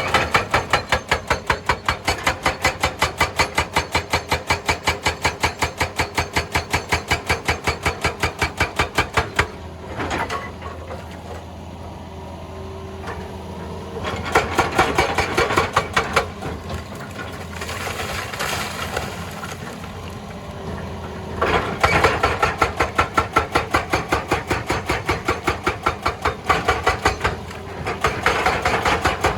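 Hydraulic rock breaker on a Hitachi EX200 excavator hammering rock in rapid, evenly spaced blows, several a second, in runs of several seconds. Between runs the hammering stops and the excavator's diesel engine keeps running.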